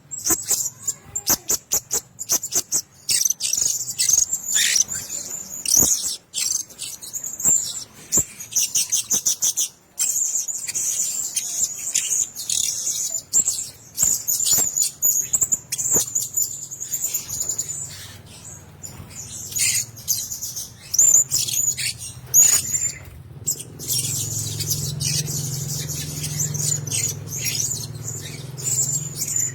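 Blue-crowned hanging parrots calling: rapid, thin, high-pitched chirps and twitters in quick runs. A low hum joins underneath over the last few seconds.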